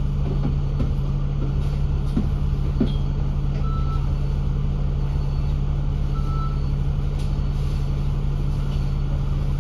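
Dennis Enviro500 MMC double-decker bus running steadily, heard from on board: an even engine hum with no revving. Two short high beeps sound partway through, about two and a half seconds apart.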